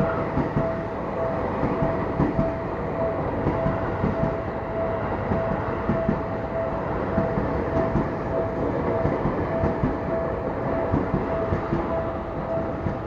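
Seibu Railway commuter train running over a level crossing, wheels clattering over the rail joints. The crossing's warning bell rings in an even, repeating tone over the train noise.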